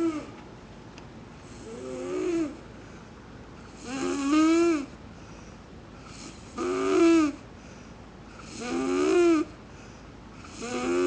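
A person snoring in a steady rhythm, about five snores, one every two to two and a half seconds. Each snore has a pitched tone that rises and then falls.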